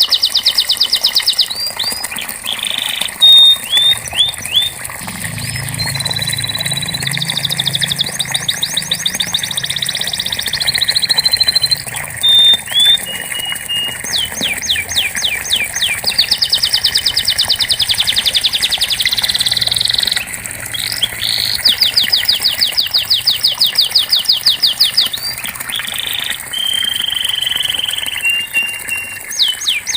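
Domestic canary singing a continuous song of fast trills and rolls. Each phrase is a quick run of rapidly repeated notes, and the song switches to a new phrase every second or two.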